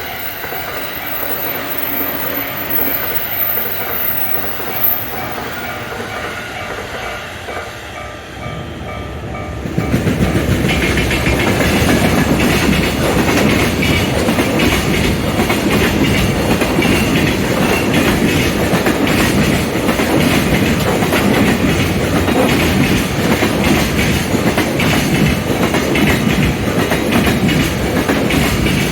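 Train passing a railway level crossing: about ten seconds in it suddenly arrives close by and runs past loudly, wheels clacking over the rail joints, after a quieter stretch in which the crossing's warning bell rings.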